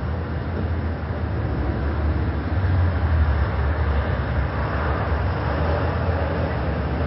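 Busy city road traffic: a steady low rumble of passing cars, a little louder about three seconds in.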